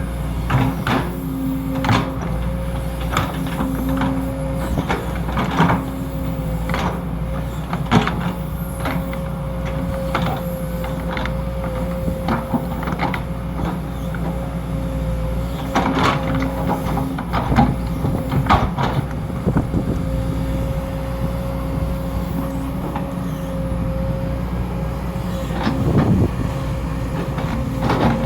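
Sumitomo SH210 hydraulic excavator at work digging a ditch: its diesel engine runs steadily under a steady whine, with clanks and knocks scattered throughout.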